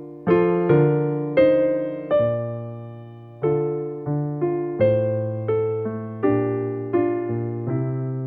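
Piano music: a slow run of chords, each struck and left to ring and fade before the next.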